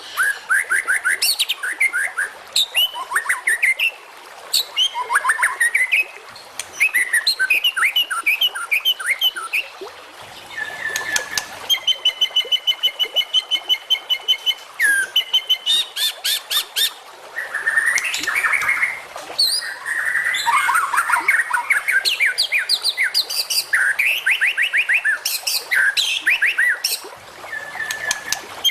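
White-rumped shama (murai batu) singing a long, varied song. Phrase after phrase of slurred whistles, quick trills and runs of fast repeated notes follow each other with short pauses, and a long rattle of rapid notes comes about halfway through.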